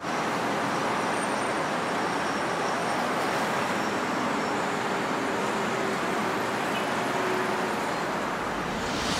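Steady rush of distant city traffic noise, swelling briefly near the end.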